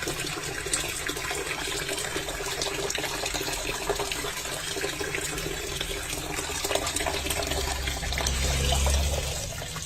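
Water running steadily, with a low hum swelling near the end.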